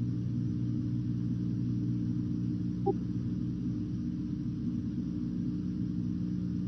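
Steady low hum of several pitched layers over a rumble, from the soundtrack of old archival film footage, with a short blip about three seconds in.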